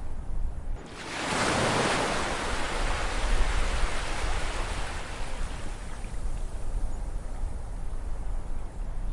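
Ocean waves: a wave breaks about a second in with a rush of surf, then washes out and slowly fades over several seconds under a steady low rumble of the sea.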